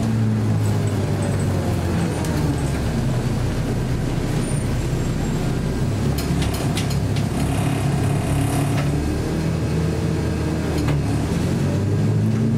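Scania L94UB city bus heard from inside the cabin, its engine running steadily under the road noise, with a few clicks and rattles around the middle. Near the end the engine note rises as the bus picks up speed.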